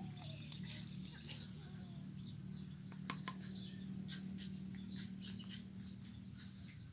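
Quiet background: a steady high insect buzz over a low steady hum, with a few faint chirps and soft clicks.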